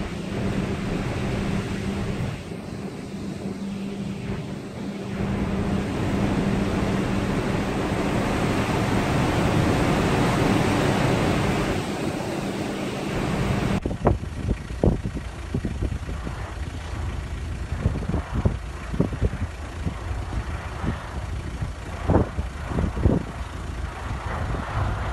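Strong wind rushing over a stormy sea, with a steady low hum beneath it. About halfway through it changes to irregular cracks and thumps as a cargo ship's bow breaks through sea ice.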